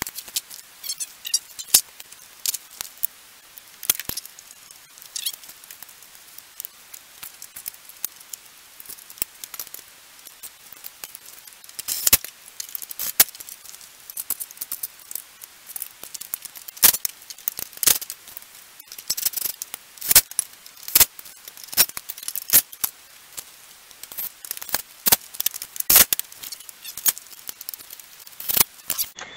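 Irregular sharp clicks, clinks and the odd louder knock of a cordless driver, fasteners and plastic and metal trim being handled at a pickup truck's front end during reassembly.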